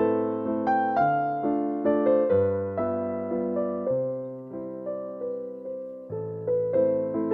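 Background music: a gentle piano melody, notes struck about twice a second and left to fade.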